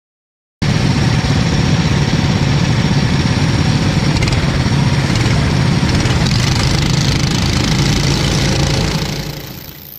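Racing engine running loudly and steadily with a deep rumble; it cuts in suddenly about half a second in and fades away near the end.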